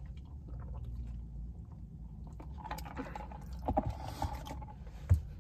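Low steady rumble in a parked car's cabin, with a few faint rustles and clicks in the middle and one dull thump near the end.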